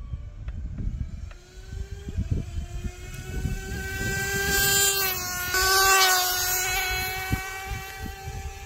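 Traxxas 4-Tec nitro RC car's small nitro engine at full throttle on a speed run: a high-pitched whine that climbs in pitch as the car accelerates. It is loudest about five to six seconds in as the car goes by, then holds its pitch and fades a little.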